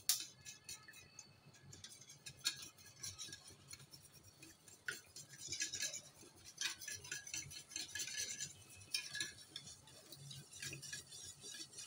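Wire whisk beating a runny egg-and-milk mixture in a large steel dish. The wires clink and scrape against the metal in quick, irregular strokes, with the swish of the liquid between them.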